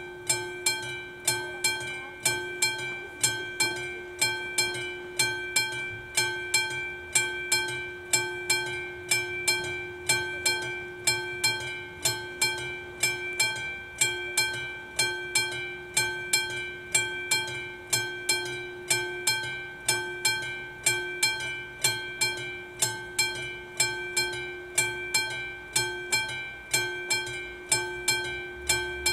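Railway level-crossing warning bell, the classic mechanical bell of AŽD 71 flashing-light signals, ringing in a steady rhythm of about three strokes every two seconds. Each stroke rings on with a held tone. The ringing means the crossing is activated and warning of an approaching train.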